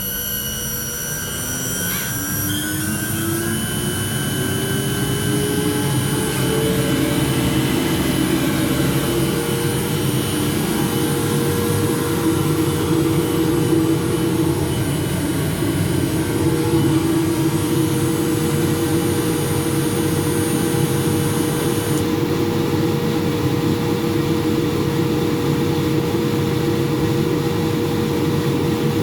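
Electric motor run from a variable-frequency drive, its whine rising in pitch for about seven seconds as the drive ramps it up, then running at a steady speed. A faint high tone drops away about 22 seconds in.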